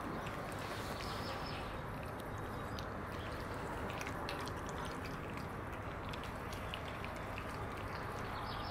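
Two cats eating chunks of wet cat food from a plastic tub, with small scattered wet chewing and lapping clicks over a steady low background noise.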